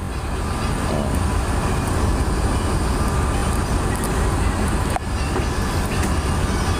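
Steady low rumble of a bus's engine and running gear, heard from inside the passenger cabin.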